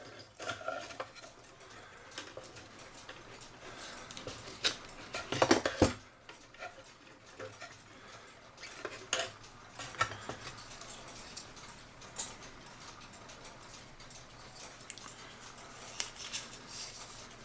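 Putty knife prying and scraping at a glued-in wooden whistle box in a cuckoo clock case, working it loose: scattered clicks, scrapes and knocks, with a loud cluster of knocks about five to six seconds in.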